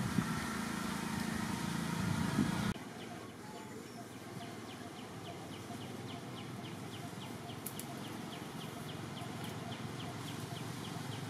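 Outdoor background sound: a louder low rumble that cuts off abruptly a few seconds in, then quieter ambience with a steady high ticking, about three ticks a second.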